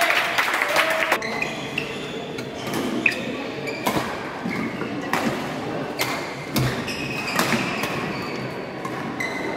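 Badminton rally: rackets striking the shuttlecock in sharp cracks roughly once a second, with shoes squeaking on the court floor and the thud of a footfall or lunge.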